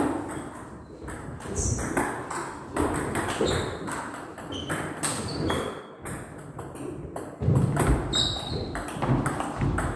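Table tennis rally: the ball clicks sharply off the bats and the table in quick, uneven alternation, starting about a second in.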